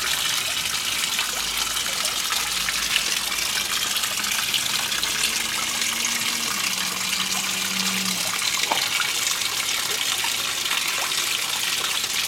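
Backyard pond waterfall splashing steadily into the water.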